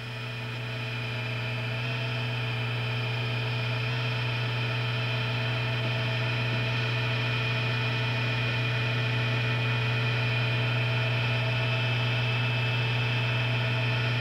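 Jet mini wood lathe running steadily with its motor hum and whine while a cloth is held against the spinning pen blank to friction-polish it. The sound swells over the first couple of seconds, then holds steady.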